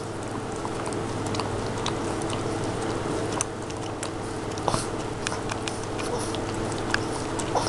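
Boston Terrier licking and lapping at a frozen dog ice cream on a stick: irregular small wet smacks and clicks of tongue and mouth, over a steady low hum.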